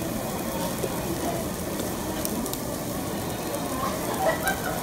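Meat sizzling and crackling on a barbecue grill.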